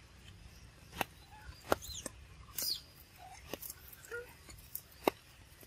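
Short, scattered animal chirps and squeaks, one falling in pitch, mixed with a few sharp clicks.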